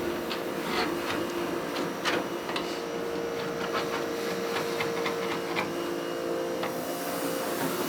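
A small electric tool's motor running steadily, with irregular scraping and clicking over it, as old paint is worked off the bus's steel panels.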